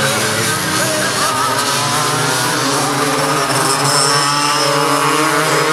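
Racing go-kart engines running at high revs as the karts lap the track, the pitch wavering up and down as they accelerate and lift through the corners.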